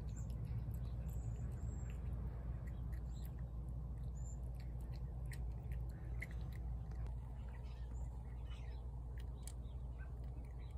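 A cat eating dry kibble from a plate: faint, scattered crunching over a steady low rumble. A few faint, short high chirps come in the first half.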